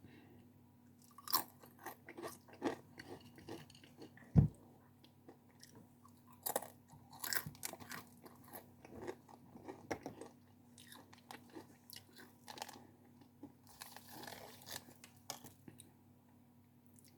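Close-miked ASMR eating: a person biting into and chewing a crunchy snack, with irregular sharp crunches. A single low thump about four seconds in is the loudest sound.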